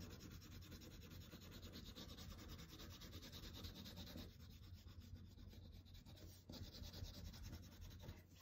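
Tan colored pencil rubbing lightly over paper in quick back-and-forth shading strokes, a faint scratchy sound.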